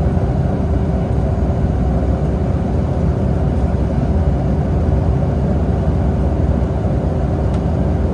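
Boeing 757 cabin noise in flight: the steady rumble of the jet engines and rushing air, with a constant hum.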